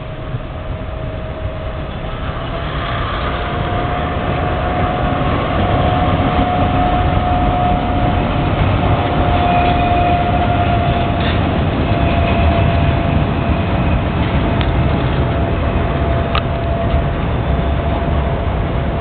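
HzL freight train rolling past, a low rumble growing louder over the first few seconds and then holding steady. A steady high whine runs over it, with a few sharp clicks later on.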